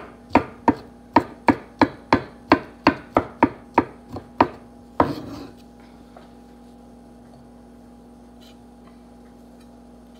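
Kitchen knife chopping avocado on a wooden cutting board: quick, even strokes, about three a second. The chopping stops after about four and a half seconds.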